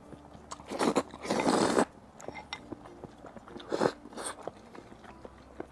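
Slurping instant noodles from a bowl: a short slurp just under a second in, a longer one about a second and a half in, and two more shorter slurps near four seconds, with quiet chewing between.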